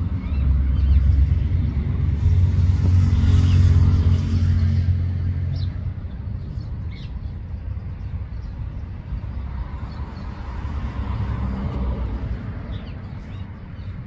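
Road traffic: a motor vehicle's engine rumbling, loudest in the first five seconds, then fading to a lower steady traffic rumble that swells again briefly late on.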